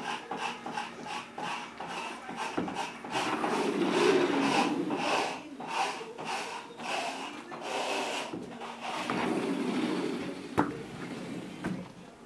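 Frameless glass curtain panels rubbing and rolling as they are slid along their floor track, in a run of repeated scraping strokes, with one sharp click about ten and a half seconds in.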